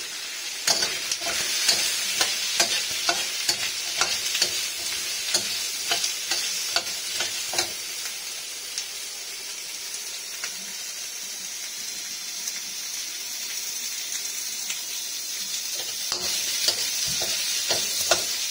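Onion, garlic, ginger and carrot pieces stir-frying in a steel wok: a steady sizzle, with a metal spatula scraping and clinking against the wok in quick strokes for the first several seconds and again near the end.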